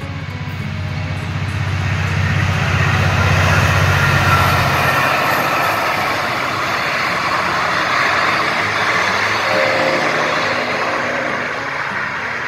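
Diesel train passing close by: a deep diesel locomotive engine drone that drops away about five seconds in, over the steady rush of wheels on the rails, which swells twice.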